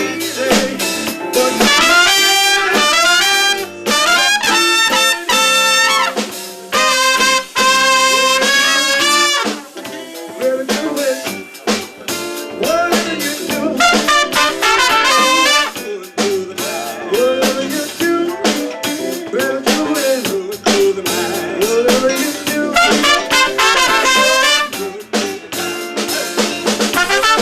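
Live band playing, with horns carrying phrased, sustained melody lines over a drum kit.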